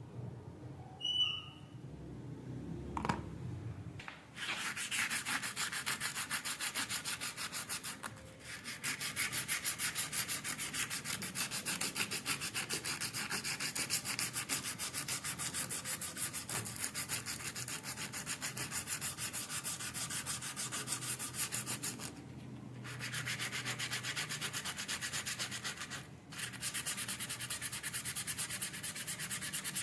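Sanding on the metal of rusted garden shears: fast, even rubbing strokes that start about four seconds in and stop briefly three times.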